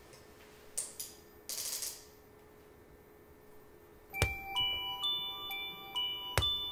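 A few soft rustles in the first two seconds, then from about four seconds in a slow, tinkling melody of single struck bell-like notes, each ringing on, in the manner of a glockenspiel or music box.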